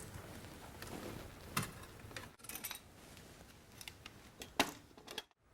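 Faint, scattered light clicks and small metallic knocks of a recessed light's trim being worked loose and pulled down from its can.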